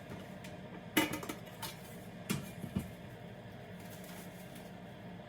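Kitchenware being handled: four short clinks and knocks, the loudest about a second in, over a faint steady hum.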